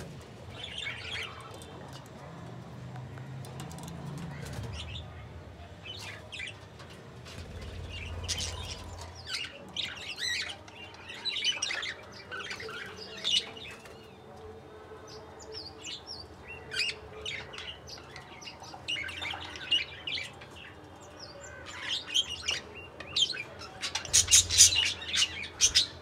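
Budgerigars chirping and chattering in short, irregular high calls, busiest and loudest near the end.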